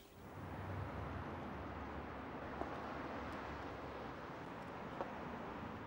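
Faint steady background rumble and hiss, with a few soft clicks.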